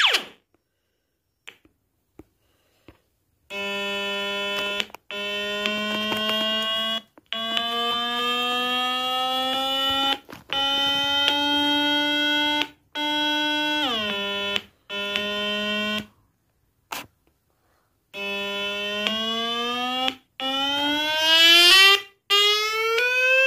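Small bare loudspeaker driven by a circuit board, playing a harsh, buzzy electronic tone, really loud. The tone comes in stretches of a second or two with short breaks between them, its pitch climbing slowly step by step, dropping back about halfway through, then rising steadily again near the end.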